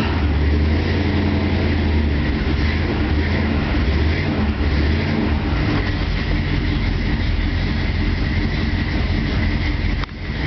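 Chevrolet ZZ4 350 small-block V8 idling steadily just after a cold start, its low exhaust rumble unbroken, dipping briefly near the end.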